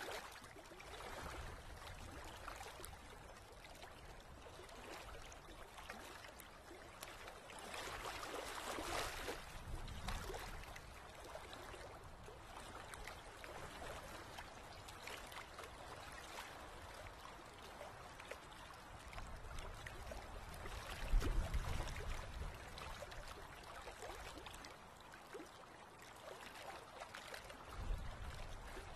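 Sea waves washing and splashing against a rocky shore, a steady hiss of surf with one stronger surge about a third of the way in. A couple of short low rumbles come about two-thirds through and near the end.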